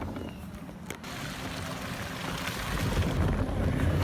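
Wind rushing over the microphone with a low rumble underneath, and a single knock about a second in.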